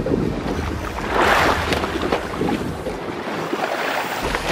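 Wind on the microphone and seawater sloshing along a boat's hull, with a louder rush of water about a second in.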